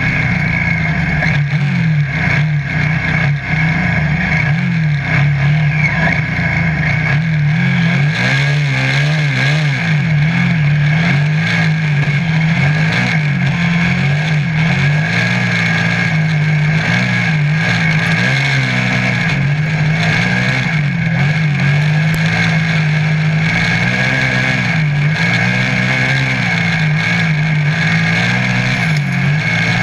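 Piranha off-road buggy's engine running hard at speed, heard from the cockpit; its pitch keeps rising and falling as the engine speed changes, more so after the first several seconds.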